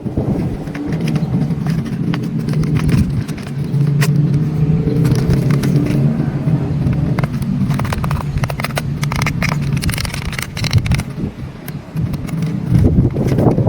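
Remote-control excavator's electric motors whirring steadily, with many short clicks and scrapes over the hum.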